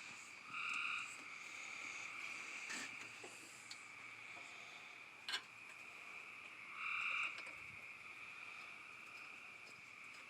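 A steady high chorus of frogs and insects, with two louder frog calls about half a second long, one near the start and one about seven seconds in. Two sharp clicks stand out, one near the three-second mark and one past five seconds.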